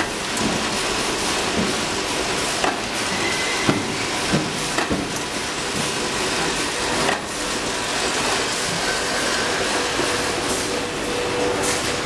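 Steady noise of factory machinery with a faint hum, broken by a handful of sharp clacks, the loudest between about three and five seconds in, as a semi-automatic wire-crimping machine for three-pin plug inserts is loaded and cycled.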